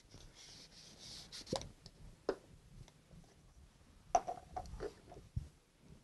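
A cardboard tube package being opened by hand: a soft sliding scrape, then a light pop about a second and a half in. After that come scattered clicks and knocks as a plastic-capped spray bottle is handled, with the sharpest click about four seconds in.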